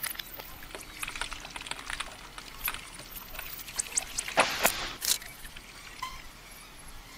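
Liquid dripping and trickling: many small scattered drips over a faint steady hiss, with two louder drips a little past the middle.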